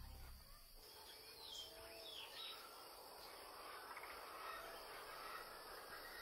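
Faint outdoor nature ambience: a soft, even hiss with a few short bird chirps in the first half. The background music ends within the first half second.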